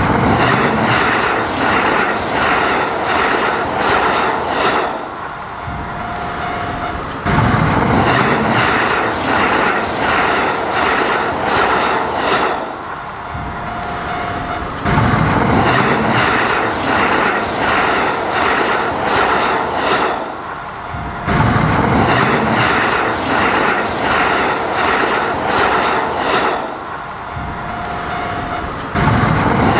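Kintetsu electric trains passing close by at a level crossing, their wheels clacking over the rail joints in a regular beat, with some wheel squeal. The sound changes abruptly every five to seven seconds, as separate passings cut together.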